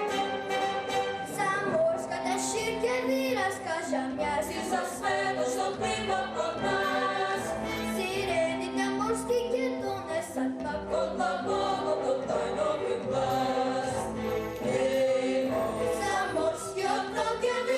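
A choir singing a song with instrumental accompaniment.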